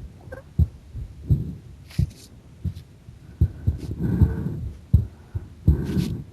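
A woman's heartbeat recorded close up: regular low thumps, about one every three-quarters of a second. A soft rushing noise swells over the beats around the middle and again near the end.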